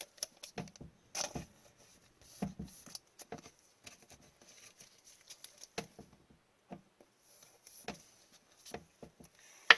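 Hockey trading card handled and slipped into a plastic card sleeve and holder: scattered light rustles and small clicks, with one sharper click near the end.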